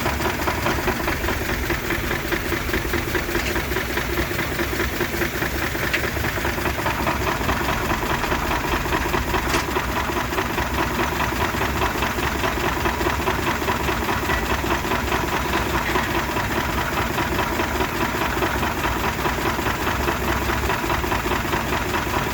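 Old engine running steadily with a fast, even beat; its running is 'smooth as butter'.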